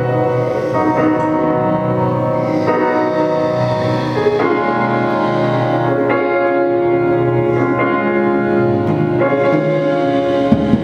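Live improvised ensemble music: sustained electronic keyboard chords that change every second or two, over a low repeating pulse.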